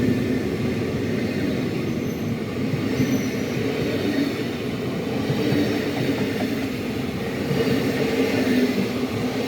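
Push-pull passenger train with an ÖBB class 1144 electric locomotive running along the track: a steady rumble of wheels and motors, with faint brief high squeals now and then.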